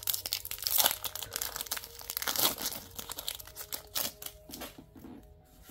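Foil Pokémon booster pack wrapper being torn open and crinkled as the cards are pulled out. The crackling is dense for the first few seconds and thins out near the end.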